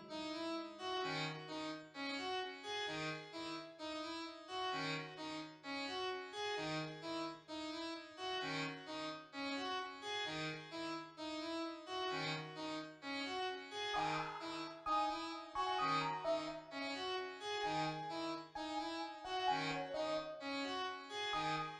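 Background music: a keyboard instrument playing a steady, repeating melody over a recurring bass note.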